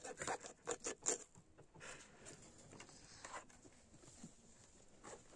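Kitchen knife scraping the scales from a whole trout's skin: a quick run of short scrapes in the first second and a half, then fainter, sparser scraping.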